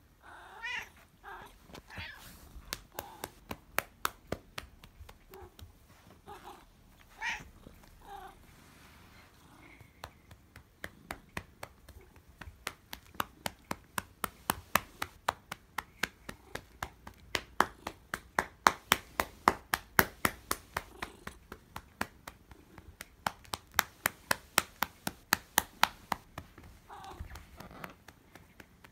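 A hand patting a calico cat's rump over and over, quick even smacks at about three a second that get louder and faster through the middle. A few short meows come in between, mostly in the first eight seconds and once more near the end.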